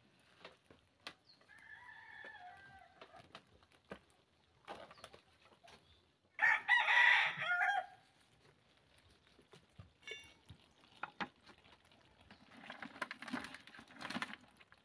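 Roosters crowing: a fainter crow about two seconds in and a loud, close crow around seven seconds in. Scattered light clicks and rustling from hands handling the live lobsters and the towel run underneath.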